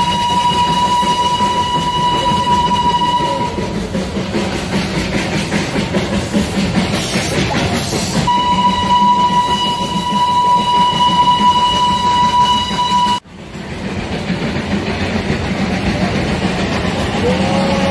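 Darjeeling Himalayan Railway B-class steam locomotive's whistle blowing two long, steady single-note blasts, each about four to five seconds, over the train's continuous running noise. The whistle is sounded often along the route to warn cars and pedestrians. About 13 seconds in, the sound breaks off abruptly, and then the train's running noise resumes.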